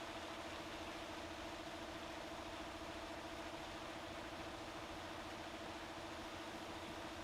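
Drill spinning a rubber eraser wheel against car paint to strip the sticky residue left by a removed badge: a steady, even motor whine with a rubbing hiss under it, running without pause.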